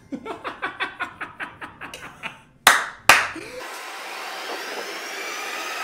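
Hands clapping quickly, about seven claps a second, fading out, then two loud sharp claps. After that comes a steady hiss.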